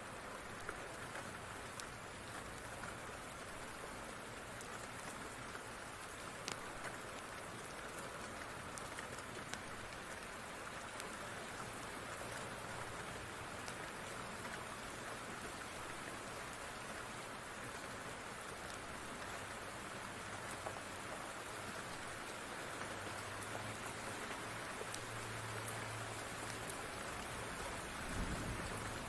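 Steady rain falling, with scattered sharp pops from a crackling wood fire. A low rumble swells near the end.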